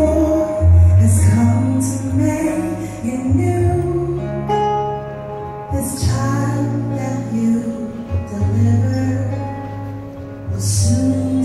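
Live band music: a woman singing a slow ballad into a microphone over long held bass guitar notes and plucked accompaniment.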